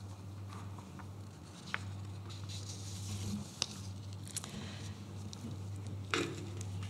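Papers being handled on a music stand close to a microphone: soft rustles and a few light clicks, with a louder rustle about six seconds in. A steady low hum runs underneath.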